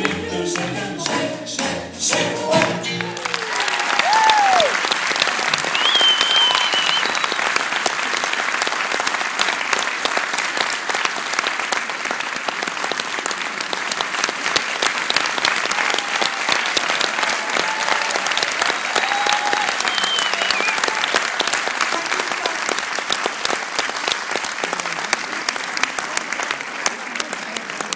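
Live music ends about three seconds in, then an audience applauds for the rest of the time, with a few whoops and whistles over the clapping.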